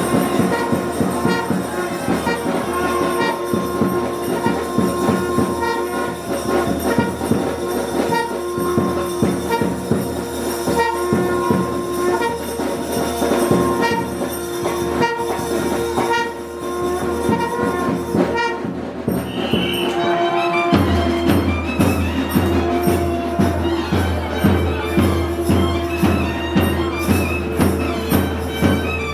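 South Indian temple procession music: a loud reed-pipe melody of held, gliding notes over frequent drum strokes, in the manner of nadaswaram and thavil. About 20 seconds in, a steady low drone enters and the drumming settles into a regular beat.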